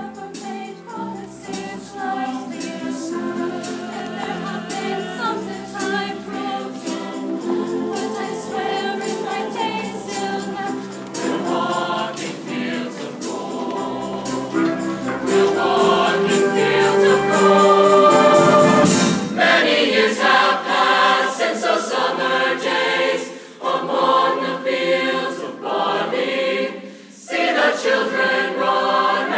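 Mixed show choir singing a number together over a steady low bass line, swelling to its loudest about two-thirds of the way through.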